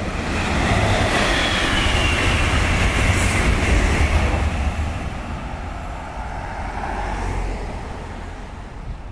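Renfe locomotive-hauled passenger train passing close by. The noise and rumble swell over the first second and hold for a few seconds, with a high whine falling in pitch about one to three seconds in. Then they fade as the train moves away.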